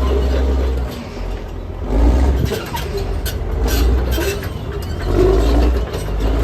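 Bulldozer's diesel engine working under load, its low rumble swelling and dropping, with several sharp knocks and scrapes as it pushes abandoned cars aside.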